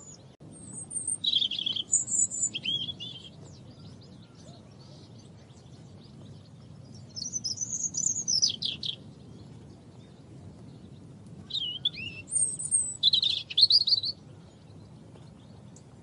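European robin singing: three phrases of high, thin, rapidly changing warbling notes, separated by pauses of a few seconds.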